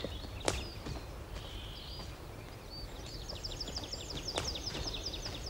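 Woodland birdsong: scattered high chirps, then from about three seconds in a fast trill of repeated notes, roughly eight a second. A single sharp crack of a footstep in the undergrowth comes about half a second in.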